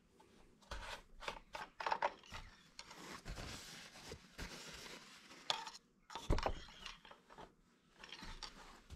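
The plastic oil-fill cap and dipstick of a riding mower engine are being unscrewed, pulled out and put back to check the oil. The sound is light rubbing and scraping with scattered clicks, and one sharper knock about six seconds in.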